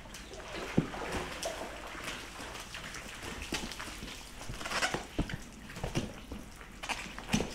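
Pool water sloshing and splashing as dogs move about in a swimming pool, with scattered short knocks.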